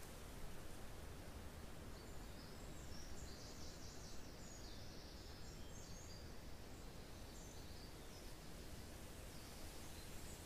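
Faint pine-forest ambience: a steady hiss of wind with a low rumble underneath. High, thin bird calls come in short bursts from about a second and a half in until near the end.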